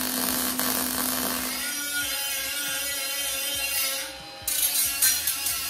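Electric arc welding on a steel frame: a steady frying crackle with a hum that stops about two seconds in. Background music follows, then a few short knocks near the end as the metal is handled.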